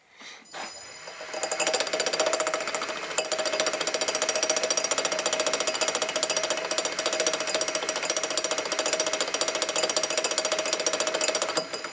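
Metal lathe turning a square metal bar between centres, the carbide insert tool taking an interrupted cut across the bar's corners: a rapid, even clattering with a steady whine. The lathe spins up first, the cut begins about a second and a half in, and it stops just before the end.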